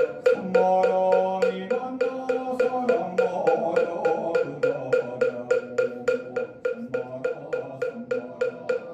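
Moktak (Korean Buddhist wooden fish) struck in a steady fast beat, about four strokes a second, each stroke with a hollow ringing tone, under chanting of the Buddhist liturgy.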